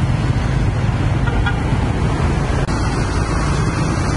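Street traffic: motorcycle engines passing close, over a steady low engine rumble.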